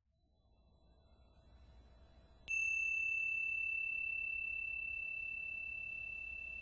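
Tingsha cymbals struck together once about two and a half seconds in, giving a single clear high ring that dies away slowly. Before the strike, a faint ringing fades in from silence.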